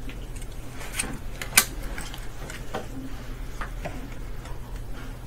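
Scattered sharp clicks and light knocks, about half a dozen, the loudest about a second and a half in, as a glass slide is changed on a microscope stage. A steady low hum runs underneath.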